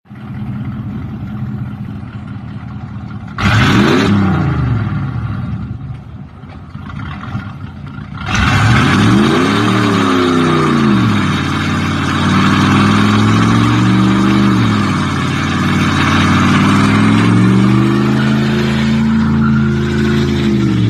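Car engine idling, then revved in a short blip about three seconds in. From about eight seconds it is revved again and held up at varying revs.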